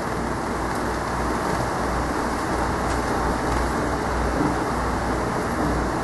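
Electric fan running steadily: a constant rushing noise with a low, evenly pulsing hum underneath.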